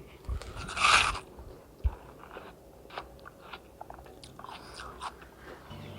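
A bite into a watermelon and white-bread sandwich about a second in, a juicy crunch, followed by quiet chewing with small scattered clicks.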